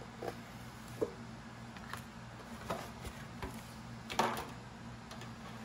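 A kitchen knife tapping and scraping against the edge of an aluminium foil pan and its plastic lid as pie dough is cut around it: about half a dozen light knocks and rustles, the loudest about four seconds in as the pan is lifted off the dough. A steady low hum runs underneath.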